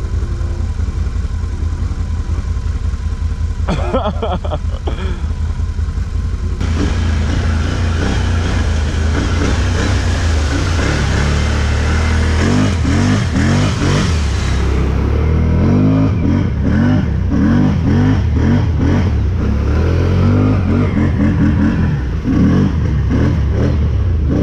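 ATV engine running, then from about six seconds in revving up and down under load with a loud rushing noise over it as it drives through deep river water.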